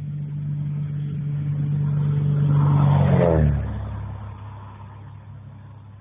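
Cessna light aircraft's piston engine and propeller passing close by. The steady drone grows louder, peaks about three seconds in, drops in pitch as the plane goes past, and then fades.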